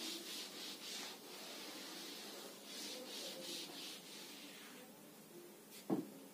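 A sponge eraser wiping a chalkboard in repeated back-and-forth strokes, a faint scrubbing swish. A single short knock comes near the end.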